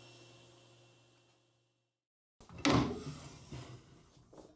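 Table saw running with its blade free of the wood, its hum fading out over about two seconds. After a short break comes a loud clunk, then lighter knocks and rattles of the saw's metal parts being handled.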